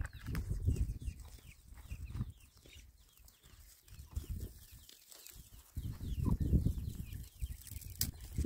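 Chicks peeping in many short, high, falling chirps, with a hen clucking now and then. A low rumble comes and goes underneath, loudest a little past the middle.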